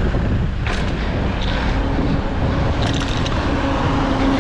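Wind rumbling on the microphone of a bicycle rider's action camera while riding through traffic, with tyre and road noise and passing cars. A sharp rattle about a second in and a short cluster of clicks around three seconds.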